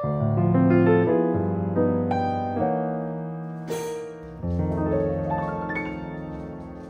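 Background music: piano playing a slow melody over ringing chords, growing quieter toward the end.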